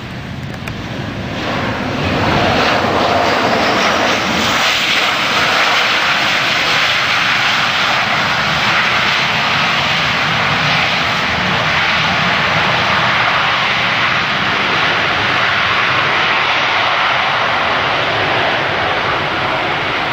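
Jet engines of a Boeing 737-800 airliner (CFM56-7B turbofans) on landing: the noise swells over the first two seconds as the aircraft comes close, then holds as a loud, steady rush of jet noise.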